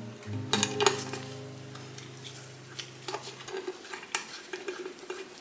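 Light metallic clicks and scrapes of small polished sewing machine parts being handled and fitted by hand, over low sustained background music notes that stop about three and a half seconds in.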